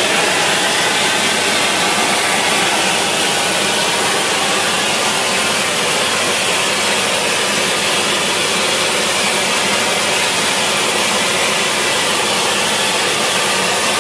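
A handheld gas torch burning with a long open flame: a loud, steady rushing hiss that does not break or change.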